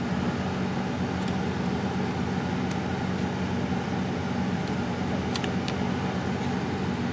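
A steady low machine hum, with a few faint light clicks of small plastic mouse parts being handled, two of them close together about five and a half seconds in.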